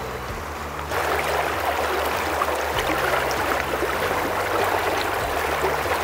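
Shallow mountain river rushing over a stony bed, a steady rush that grows louder about a second in.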